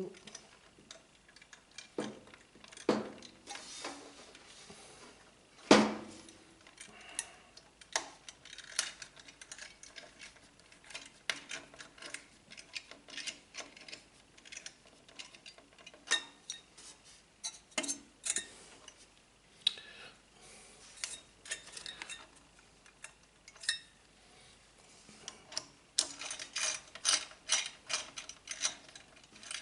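Small metal and plastic parts of a CPU cooler's mounting hardware clicking and tapping as they are handled and fitted, irregularly, with a louder knock about six seconds in and a quick run of clicks near the end.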